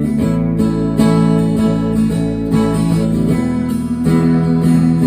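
Acoustic guitar strummed, its chords ringing on between strokes as a song begins.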